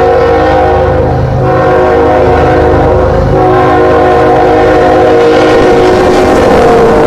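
Freight diesel locomotive's air horn blowing a loud chord in long blasts, with brief breaks about a second in and again about three seconds in, over the low rumble of the engines.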